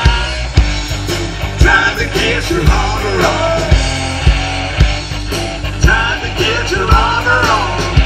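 Live rock band playing through a PA: two electric guitars, bass guitar and drum kit, with a steady drum beat of about two hits a second.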